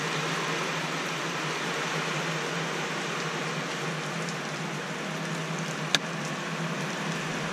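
Steady rush of heavy typhoon rain and wind, muffled by a roof overhead, over a low steady hum. There is a single sharp click about six seconds in.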